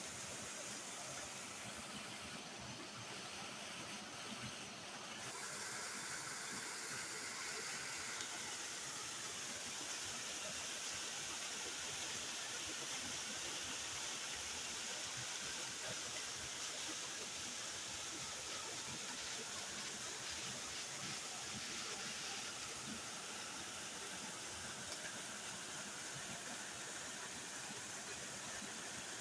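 Waterfall: water pouring and splashing in a steady rushing hiss.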